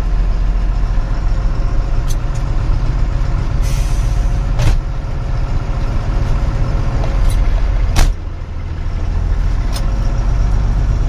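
Truck's diesel engine running as it drives, heard from inside the cab: a steady low rumble. Two sharp clicks come about 4.5 and 8 seconds in. After the second, the engine sound drops briefly and builds back up.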